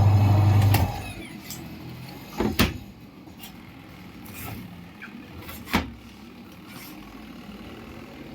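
Loud electric hum of the semi-automatic washing machine's motor, which cuts off under a second in, followed by two sharp clicks about three seconds apart as the machine is handled.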